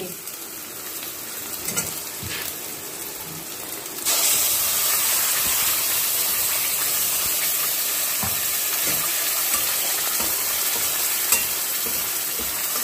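Chopped onions frying in oil in a stainless steel pan. About four seconds in, spinach puree is poured in and the sizzling suddenly gets louder, then carries on steadily while a spatula stirs the puree into the onions.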